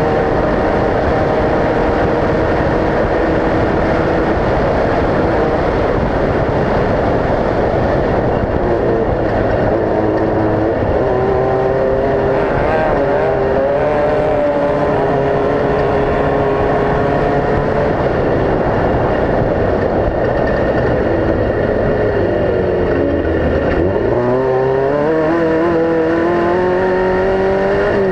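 Off-road race vehicle engines running hard, several pitches at once. Near the end one engine drops sharply in pitch, then climbs steadily as it accelerates.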